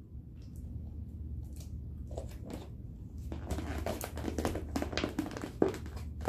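Eating sounds: a plastic fork clicking and scraping in a food container, with chewing, over a steady low hum. The clicks are sparse at first and come thick and fast from about halfway.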